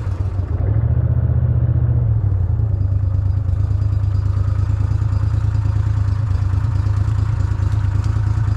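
Boat motor running steadily, a loud low hum.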